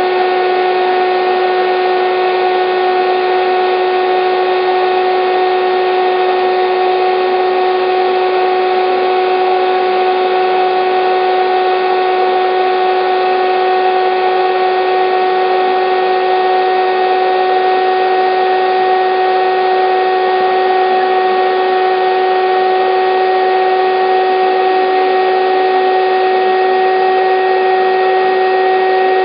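Electric air-bed pump running steadily: a constant motor hum with a fixed pitch over a rush of blown air.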